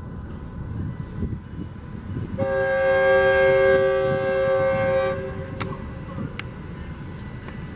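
Metrolink commuter train approaching with a low rumble, its leading bi-level cab car sounding one horn blast of about three seconds: a chord of several steady tones. Two faint clicks follow the horn.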